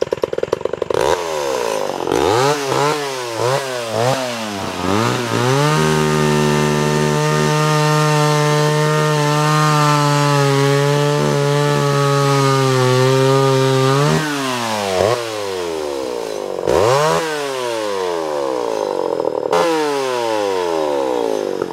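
Homelite Super XL Automatic two-stroke chainsaw engine running. It is revved in quick blips, held at steady high revs for about eight seconds, dropped back, then blipped several more times.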